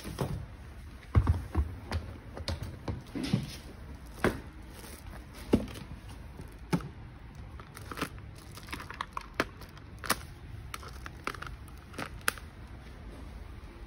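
A hard plastic carrying case being handled on a tiled floor and opened: irregular knocks and clicks from the case shell and its latches, with heavy thumps about a second in, and some crinkling of plastic wrap.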